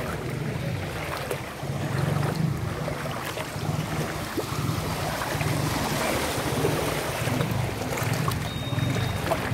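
Floodwater sloshing and splashing around wading legs, coming in low pulses roughly once a second, with wind rumble on the microphone.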